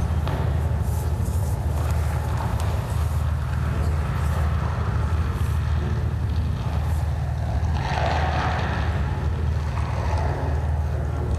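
Steady low rumbling drone, with a swell of higher hiss about eight seconds in.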